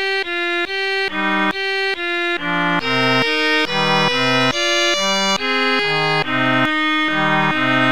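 Instrumental background music: a melodic piece of short, evenly spaced notes, about two a second, in a repeating figure.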